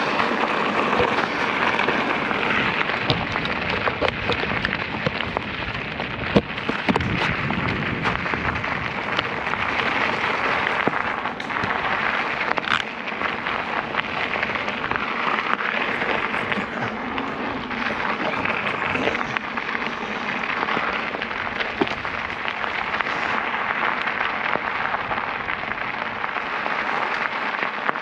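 Rolling noise of an e-mountain bike's tyres crunching over a rough 4WD track on a climb, with scattered clicks and knocks from the bike rattling over the bumps.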